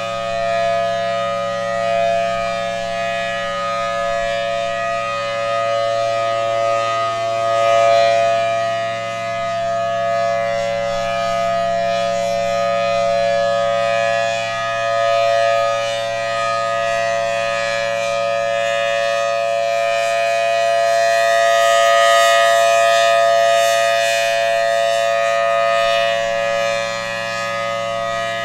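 Federal Signal Thunderbolt civil defense siren sounding a steady tone, a held chord without any rise or fall in pitch. Its loudness swells and fades every several seconds as the head rotates.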